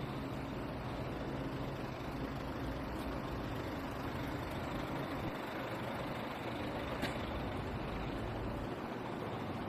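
Steady city street traffic noise from passing cars, buses and trucks, with a low engine hum in the first couple of seconds and a single sharp click about seven seconds in.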